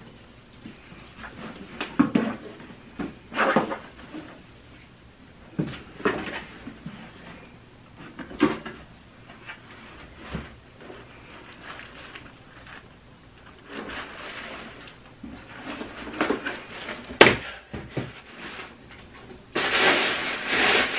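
Cardboard gift box being handled and opened: scattered knocks and scrapes of the box and lid. Near the end comes a longer, louder rustle as the packed contents are pulled out.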